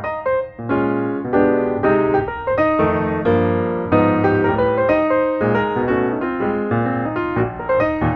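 Background music: a piano (or electric piano) playing a melody over chords, notes changing quickly and steadily.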